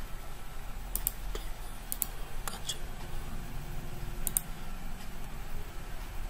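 Computer mouse button clicking, several sharp clicks, mostly in quick pairs, as points are picked with a PCB design program's measure tool, over a faint steady mains hum.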